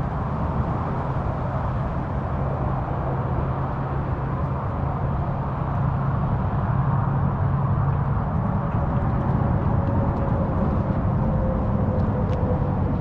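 Steady, even noise of highway traffic on the Sunshine Skyway Bridge.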